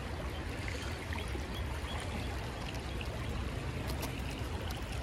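Creek water flowing and rippling with a steady rush.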